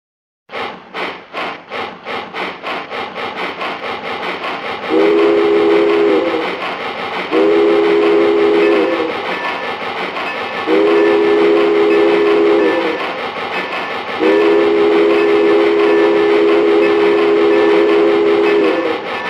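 A train whistle sounding four blasts of several notes at once, the first short and the last and longest about five seconds, over a steady rhythmic chugging that starts about half a second in and quickens.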